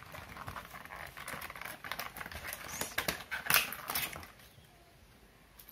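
Plastic packaging and a cardboard toy box being handled and pulled apart: irregular crinkling and crackling, loudest about three and a half seconds in, dying away after about four seconds.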